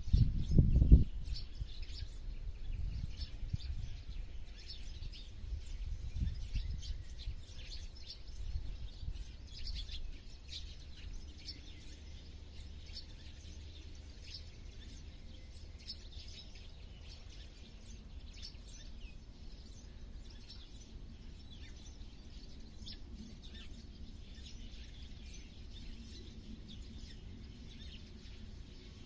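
Small birds chirping and calling, with many short high chirps overlapping throughout. A low rumble is loudest in the first second and fades away over the first ten seconds or so.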